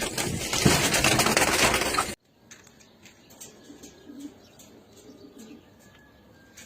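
Loud, close fluttering of pigeon wings for about two seconds, cut off suddenly, followed by faint pigeon cooing and small chirps.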